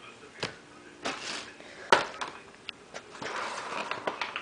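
Handling noises: a few sharp knocks, the loudest about two seconds in, with rustling between them and a longer rustle near the end.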